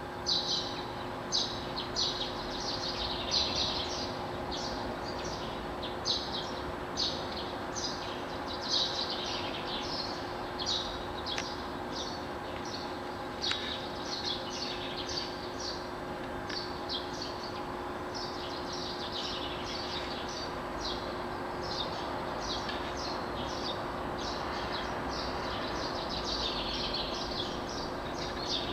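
Dawn chorus of songbirds: many short high chirps and song phrases, several a second and overlapping throughout, over a steady low hum and background noise.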